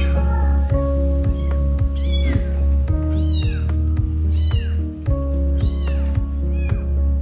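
Young bottle-fed kittens mewing, high calls that rise and fall, about one a second, crying for their mother. Background music with a steady beat runs underneath.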